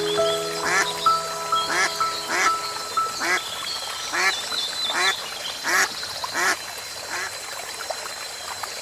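Duck quacking over and over, about one quack every 0.8 seconds, growing fainter and dying away after about six seconds, over soft background music.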